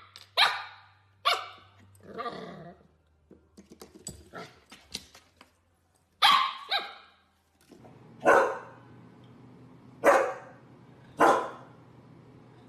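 A husky puppy playing with a spring doorstop, with the spring twanging and rattling and the puppy giving short yips. Then an adult husky barks at its own reflection in a mirror: three single barks about a second and a half apart.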